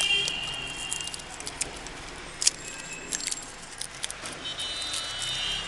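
Stiff, papery strawflower (Xerochrysum bracteatum) petals crackling and rustling like dry straw as fingers rub them: a run of dry clicks, the sharpest about halfway through.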